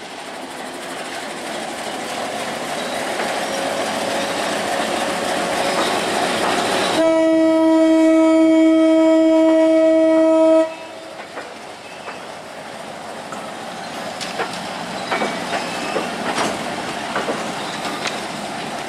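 Diesel locomotive and freight wagons passing close, the engine and rail noise building. About seven seconds in, the locomotive's air horn sounds one long steady blast of three or four seconds and cuts off suddenly. After that the wagons' wheels click over the rail joints as the goods train rolls by.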